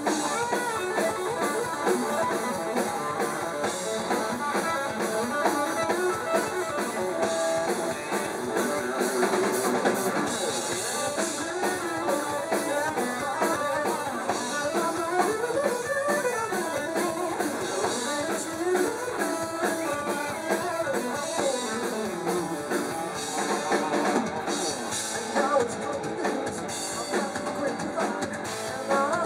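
Rock power trio playing live: electric guitar, bass guitar and drum kit, heard from the audience.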